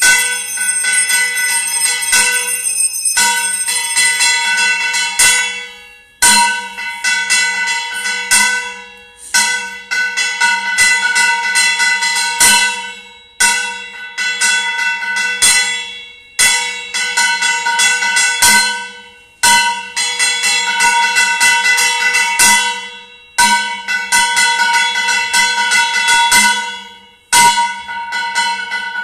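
Temple bells ringing for the mangalarti: fast strikes in repeated bursts of two to four seconds, each fading away briefly before the next begins.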